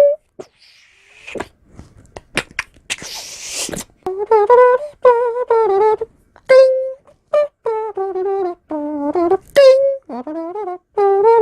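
A man's vocal impression of an elevator: a few mouth clicks and a short breathy hiss, then a hummed tune of short, brass-like notes in the manner of elevator music from about four seconds in.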